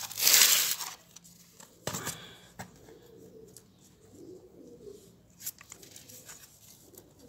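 Hands pressing and working potting soil around a seedling and in a metal tin: a loud rustling scrape in the first second, a few sharp clicks near two seconds, then soft crumbling. A pigeon coos faintly in the background.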